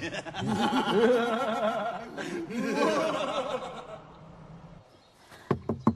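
Two men laughing, a gloating villains' laugh that fades out about four seconds in. A couple of short thumps come near the end.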